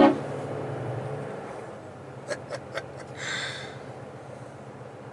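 Truck engine running low, heard inside the cab as the lorry rolls slowly, its hum easing off about a second in. A loud knock right at the start, three quick clicks around two and a half seconds in, then a short hiss.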